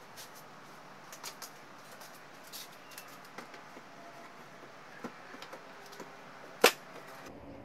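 Plastic motorcycle top box being handled and set onto its rear-rack mount: scattered light knocks and scrapes, then one sharp, loud click near the end as it latches onto the base.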